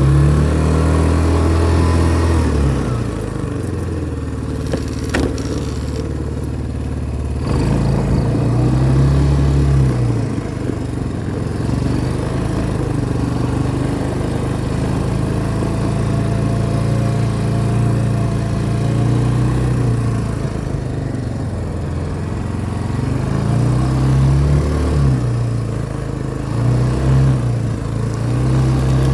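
Four-wheeler (ATV) engine running under way, its pitch rising and falling again and again as the throttle is opened and eased. A single sharp click about five seconds in.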